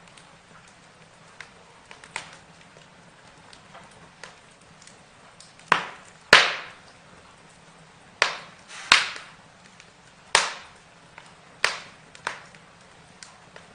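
Burning wood crackling, with irregular sharp pops and snaps, the loudest about six seconds in and a cluster of several more over the next six seconds.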